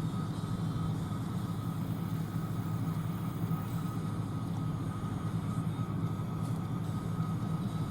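John Deere combine running steadily while harvesting soybeans: a low, even engine drone with a thin, steady whine above it.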